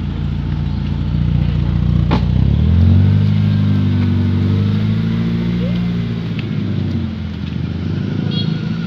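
BMW 318i (E36) four-cylinder engine idling, then revved up about three seconds in and held at raised revs before easing off near the end. A single sharp click about two seconds in.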